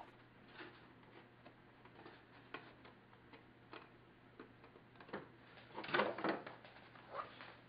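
Faint, scattered clicks and light knocks of a thin cedar strip being handled against the stapled deck strips as it is test-fitted, with a short cluster of louder clacks about six seconds in as the strip is lifted away. A faint steady low hum runs underneath.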